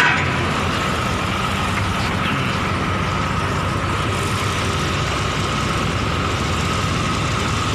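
Excavator's Isuzu 6BD1 six-cylinder diesel engine idling steadily just after starting, warming up, with a steady whine over the low rumble.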